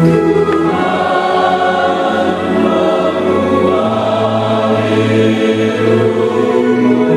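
Mixed church choir singing a hymn, accompanied by a two-manual electronic organ holding steady chords.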